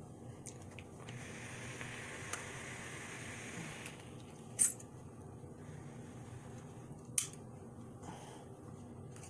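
Handling sounds as a phone is fitted into a plastic tripod phone clip: a few seconds of scraping rustle, then two sharp clicks a couple of seconds apart.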